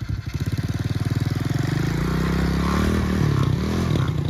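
The 110cc four-stroke engine of a moped with a four-speed semi-automatic gearbox, accelerating hard from a standstill in first gear. The revs climb over the first two seconds, then dip and rise again a few times as it pulls away.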